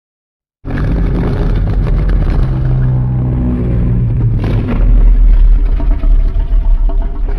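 A loud, rumbling monster sound effect for a Godzilla-style kaiju, starting abruptly just under a second in out of dead silence, a dense deep rumble with a low held tone that swells about halfway through.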